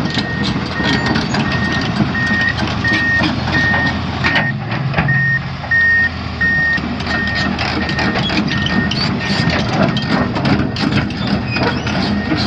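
Komatsu PC490LC-10 excavator's diesel engine running, with its travel alarm beeping steadily about twice a second, typical of the machine tracking. Short metallic clanks sound throughout.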